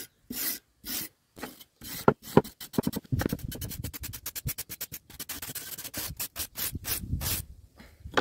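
Hand-held steel wire brush scrubbing flaking rust off an old iron pickaxe head in rasping back-and-forth strokes. The strokes come about two a second at first, then quicker and denser from about three seconds in.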